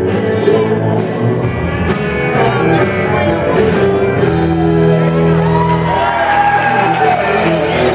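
Live country band playing, with fiddle, electric guitar and drums.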